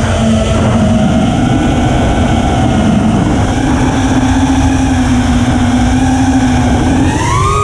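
ImpulseRC Apex 5-inch FPV quadcopter's four iFlight XING 2207 1800KV brushless motors and propellers whining steadily in fast flight, with wind rush on the onboard camera's microphone. The pitch climbs near the end as the throttle goes up.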